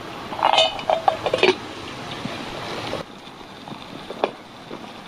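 Small metal pot clinking and knocking as it is handled and set down on a bed of coals, with several clinks in the first second and a half and one more knock about four seconds in, over a steady hiss.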